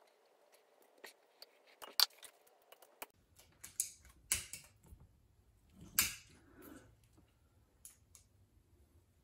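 Small metal clicks and short scrapes, scattered and irregular, of a hand tool working a wrist-pin retaining clip into its groove in a motorcycle piston; the sharpest clicks come about two and six seconds in.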